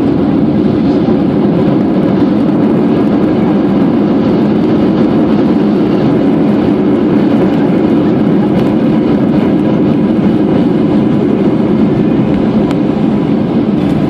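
Steady roar inside the cabin of a Boeing 737-800 rolling along the runway, the engine and rolling noise heard through the fuselage beside the wing.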